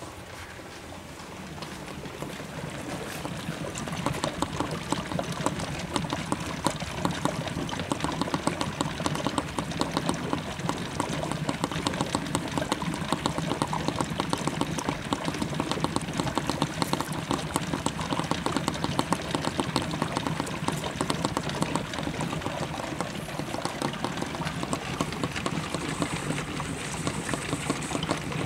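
HHO generator's gas bubbling hard through water: a dense, crackling fizz that grows louder over the first few seconds and then holds steady, the sign of a heavy flow of gas.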